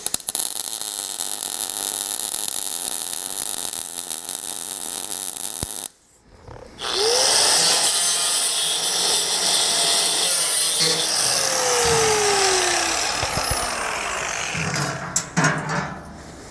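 A MIG welder arcing steadily for about six seconds as it tacks a hinge onto a steel diamond-plate firebox. Then an angle grinder with a cut-off wheel spins up and cuts the firebox door free, its pitch falling as it slows near the end, followed by a few light knocks.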